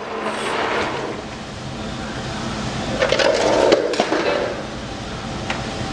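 Steady mechanical rumble with scraping and a few sharp metallic clanks, busiest about three to four seconds in, as heavy equipment is moved.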